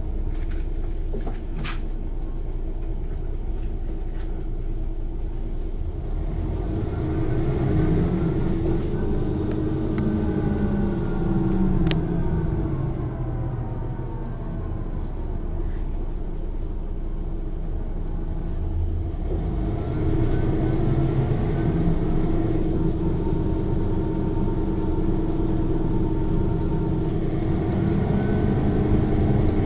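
Inside a Mercedes-Benz O 405 N1 city bus under way, its diesel engine runs loudly and steadily. Over the engine comes a gear whine from the rear axle's differential, rising and falling in pitch as the bus gathers and loses speed, once around ten seconds in and again after about twenty seconds.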